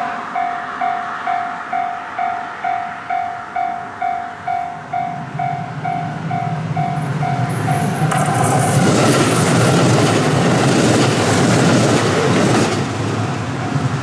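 Japanese level-crossing warning bell ringing steadily about twice a second as a diesel train on the non-electrified Takayama Line approaches. The train's engine hum builds from about five seconds in, and from about eight seconds its loud passing noise drowns the bell for some five seconds before the bell is heard again near the end.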